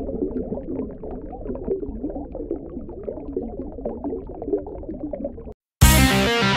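Bubbling, gurgling water: a dense stream of small bubble pops over a low rumble. It cuts off about five and a half seconds in, and after a short gap loud rock music with electric guitar starts.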